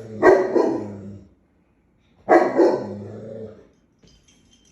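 Giant dog giving two deep, loud guard barks about two seconds apart, each trailing off over about a second: warning barks at a dog-shaped cookie jar it takes for another dog.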